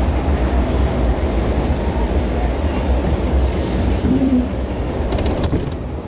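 Steady mechanical rumble and rattle of a log flume boat moving along the ride's track, heard from on board, with a few light clicks about five seconds in.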